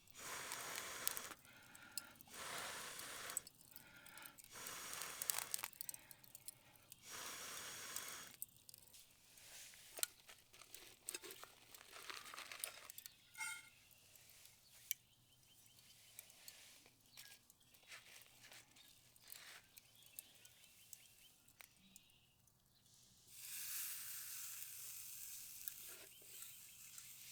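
Puffs of air blown through a utensil handle used as a bellows onto charcoal: about four airy hisses of a second or so each in the first eight seconds. Light clicks of metal utensils follow, then a longer hiss near the end.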